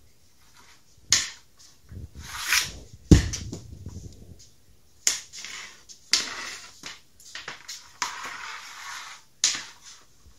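Hockey stick and puck on a plastic shooting pad: the blade sweeps the puck across the pad in a wrist shot, and the puck strikes with a heavy thud about three seconds in. Later come sharp clacks and scraping as several pucks are raked together with the stick blade.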